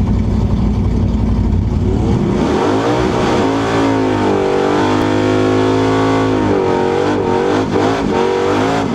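Nitrous-fed 500-cubic-inch stroker Mopar big-block V8 in a Plymouth Barracuda on a drag run: a heavy low rumble, then the engine revs hard with its pitch climbing, dips briefly about two thirds of the way through and climbs again.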